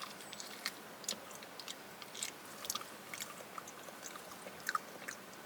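A person chewing raw wild bird meat with the mouth close to the microphone: soft, irregular wet clicks and smacks, a few a second.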